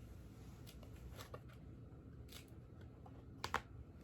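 A book's pages being handled and turned: a few faint rustles and clicks, with two quick louder clicks near the end.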